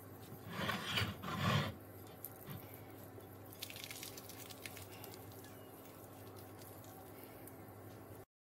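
Crisp grilled tortilla rustling and crackling under hands as a cheese quesadilla is pressed and torn apart, with two louder scraping rubs about a second in, then faint crackles.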